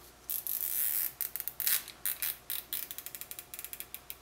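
A zip tie being pulled tight through its head: a short rasp, then a run of ratchet clicks that come faster and faster toward the end.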